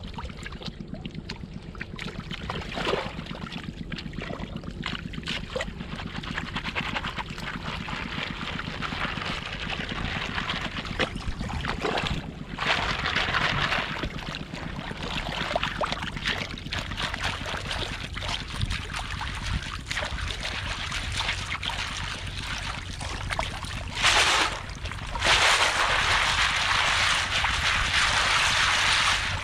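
Water sloshing and splashing as hands work through wet mud in shallow seawater, then a plastic basket of clams is swished back and forth in the water to wash off the mud. The sloshing grows louder in the last few seconds.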